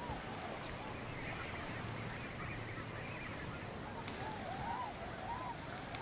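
Waterfowl calling: short calls that rise and fall, a few chattering ones early and several in a row near the end, over a steady hiss of outdoor ambience.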